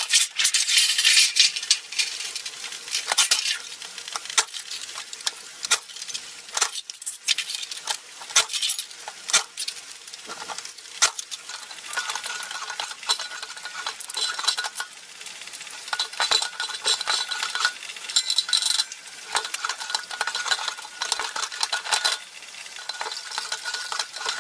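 Sheet metal rattling, scraping and clinking as it is handled and fed through a slip roll to curl it into a cylinder. Many irregular sharp clicks run over a steady hiss, with a faint thin squeal coming and going in the second half.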